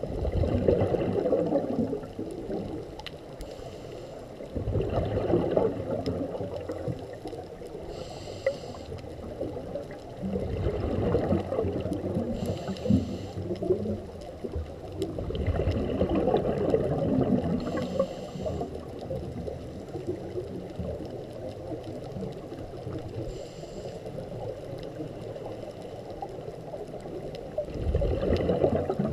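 Scuba diver breathing through a regulator underwater: bubbling, gurgling exhalations every few seconds, with short hissing inhalations between them.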